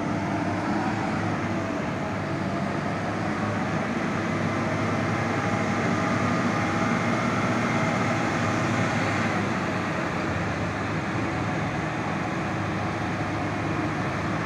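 Heavy truck's diesel engine running steadily under load as the truck crawls forward at low speed, towing a trailer carrying a crane.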